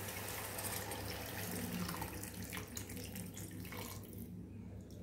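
Hot water poured in a stream from a glass bowl into a pan of spiced potato masala, splashing into the sauce; the pour thins about four seconds in.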